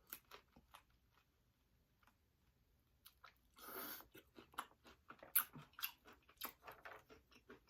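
Close-miked eating sounds: wet chewing and lip smacks from a seafood boil. The first few seconds are quiet with only a few faint clicks; from about three and a half seconds in there is a brief noisy rush, then a quick string of sharp wet clicks and smacks.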